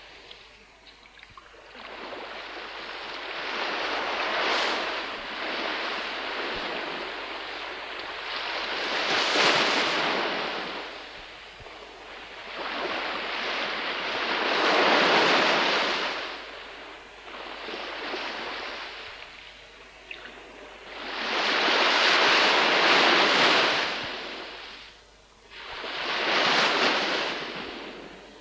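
Ocean surf sound effect: waves wash in and draw back, each rushing surge swelling and fading every four to six seconds.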